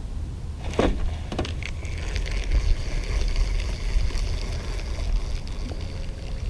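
Low wind rumble on the microphone, with a few clicks from the spinning reel about a second in, then a thin, steady hiss as line pays out off the spool on a cast.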